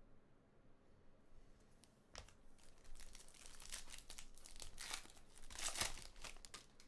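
Trading card pack wrapper being torn open and crinkled by hand, starting about two seconds in and running as a dense crackle that is loudest near the end.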